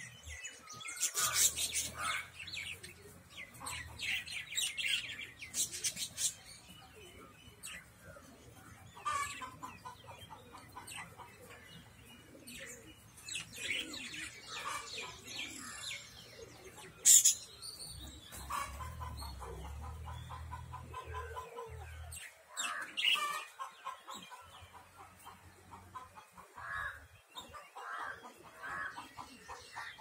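A flock of caged budgerigars chirping and chattering, with runs of rapidly repeated short notes and a single sharp click about halfway through.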